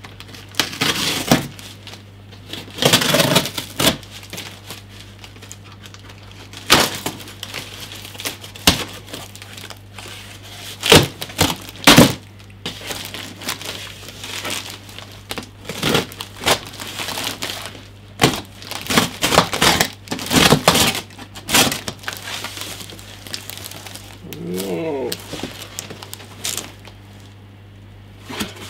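Packing tape on a heavily taped cardboard shipping box being slit with a knife and the cardboard torn open: a run of sharp, irregular rips, cracks and crinkles.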